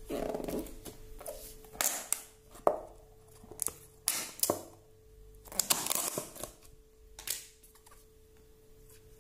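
Frost-covered plastic food-storage container being handled and its snap-on lid pulled open: a series of plastic crackles, scrapes and sharp clicks, the sharpest about a third of the way in. A faint steady hum runs underneath.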